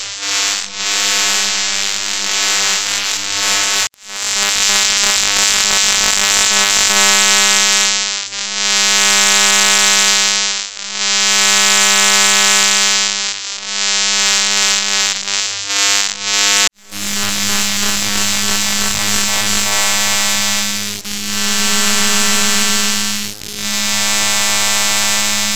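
Electrical surge sound effects: a loud, buzzing electric hum that swells and fades in repeated surges every two to three seconds. It cuts off abruptly about four seconds in and again about two-thirds of the way through, then starts up again.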